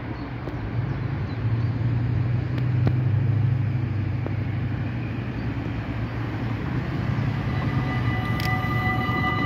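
Steady rumble of road traffic passing the level crossing. About eight seconds in, the crossing's EBA electronic warning bells start up, a steady ringing of several high tones: the crossing is activating for an approaching train.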